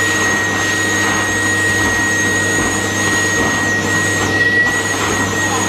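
Build-A-Bear stuffing machine's blower running steadily, blowing fluff through the nozzle into a plush shark.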